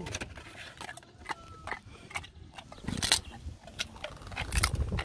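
A dog ripping and chewing at a cardboard treat box with its mouth: short crackling tears of cardboard, the loudest about three seconds in and again near the end.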